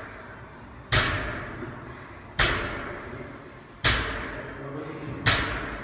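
Barbell loaded with bumper plates hitting the rubber gym floor at the bottom of each deadlift rep: four knocks about one and a half seconds apart, each ringing briefly.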